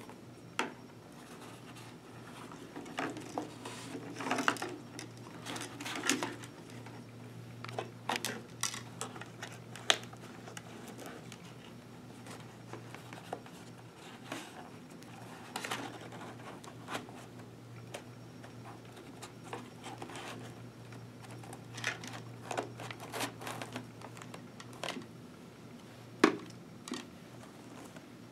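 Hands handling a Schuberth helmet's interior and intercom wiring: scattered light clicks, taps and rustles as a speaker, cable and battery are pushed under the fabric straps, over a faint steady hum.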